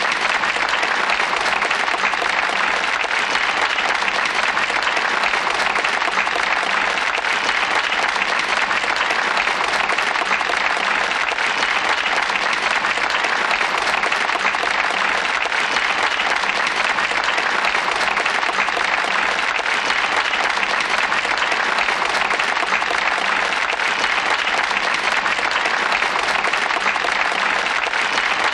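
A crowd applauding, dense and steady, with no breaks or swells.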